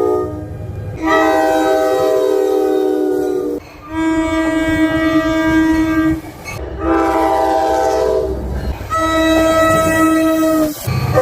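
NJ Transit train air horns sounding four long blasts, each several steady tones together in a chord, with abrupt breaks between them. In places the tones slide down in pitch as a train passes.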